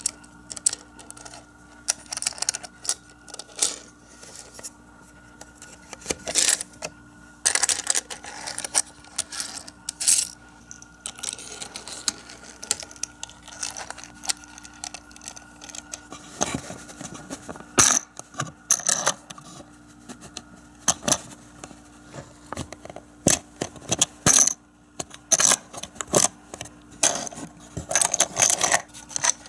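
Micro Machines toy cars being pushed and set down on a plastic playset, making scattered sharp clicks, rattles and scrapes as the small cars knock and roll against the plastic track and garage pieces.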